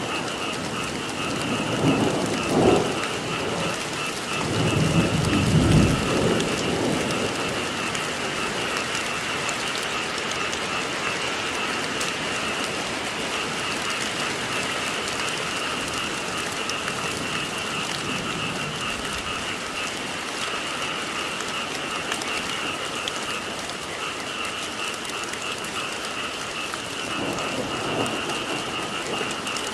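Steady rainfall with a constant chorus of frogs. Low rumbles of thunder come about two seconds in, again louder around five to six seconds, and faintly near the end.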